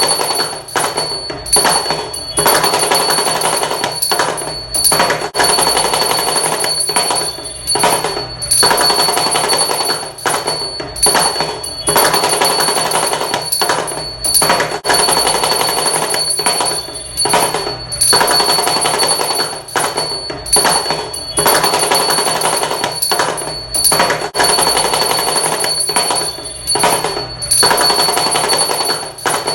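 Damru, the small hourglass-shaped hand drum, rattled in rapid continuous strokes. It plays in phrases a second or two long with brief breaks between them.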